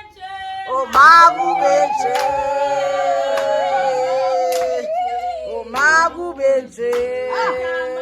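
Background music: a song with a woman singing long held notes that waver and slide in pitch, louder phrases coming about a second in and again near six seconds.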